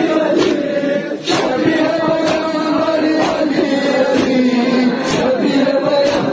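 A large crowd of men chanting a Muharram mourning lament together while beating their chests in unison (matam). The slaps land in time with the chant, about one a second.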